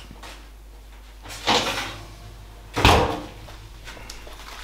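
A door being worked: a short rattling sound about a second and a half in, then a louder closing thump just before three seconds.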